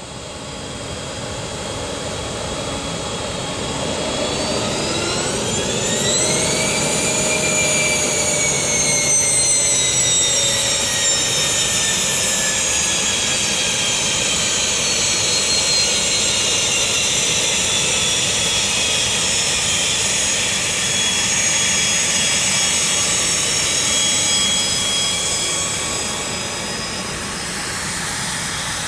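HondaJet's twin GE Honda HF120 turbofans whining at taxi power. About four seconds in, the whine rises in pitch over a few seconds as the engines spool up, then slowly drops back and settles to a steady whine.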